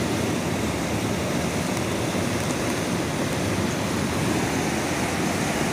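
Steady rushing of a fast mountain river's white water tumbling over rocks.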